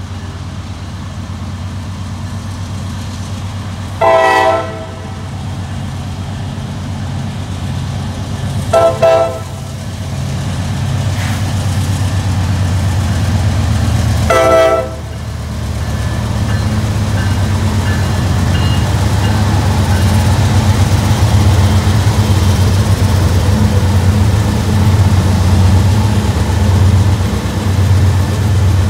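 Three GE C44-9W (Dash 9) diesel locomotives approach and pass, their engines rumbling louder as they draw near. The lead unit sounds its raised-letter Nathan K5LA five-chime air horn in three short blasts, about four, nine and fourteen seconds in.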